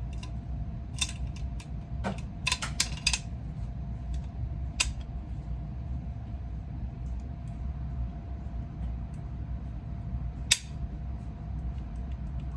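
Scattered metallic clicks and clinks of rifle parts being handled and fitted back together, a quick cluster of them about two and a half seconds in and one sharp click near the end, over a steady low hum.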